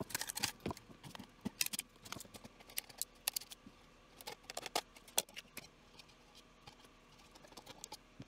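PLA support material being snapped and snipped out of a 3D-printed duct elbow with pliers, support that is hard to break away. It makes a rapid run of sharp, irregular clicks and cracks that thins out in the last couple of seconds.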